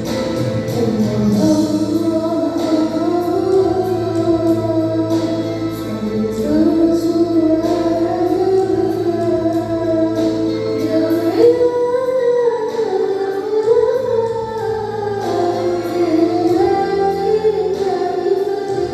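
A sholawat, an Islamic devotional song, sung by a group of voices to instrumental accompaniment, with a steady percussion beat under the melody.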